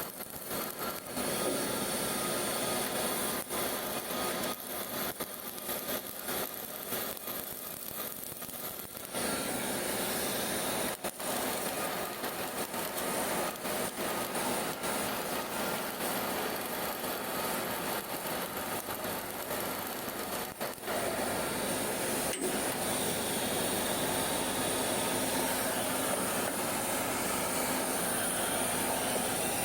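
Electric arc welding: the arc crackling and sizzling steadily, full of small sharp pops, growing louder about nine seconds in and again about twenty seconds in.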